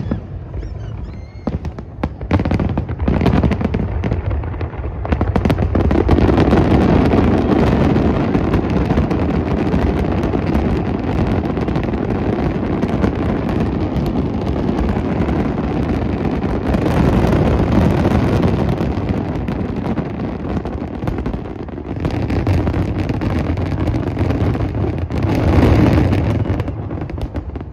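Fireworks display of aerial shells: a few separate bangs, then from about five seconds in a dense, continuous barrage of overlapping bursts and booms. It eases slightly and swells again near the end.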